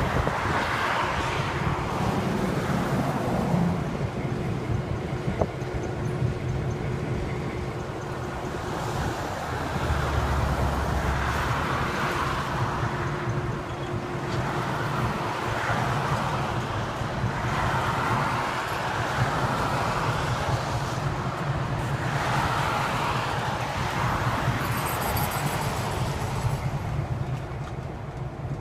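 EMD GP9 diesel-electric locomotives running steadily during switching, a low engine hum, with swells of wind noise on the microphone every few seconds.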